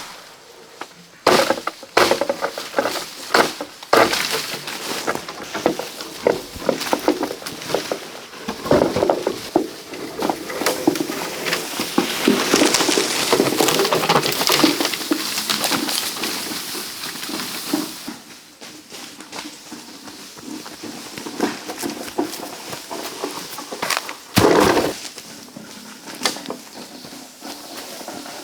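Dry wood cracking and snapping with irregular knocks, thickening into a stretch of dense crackling rustle in the middle, with one louder crack near the end.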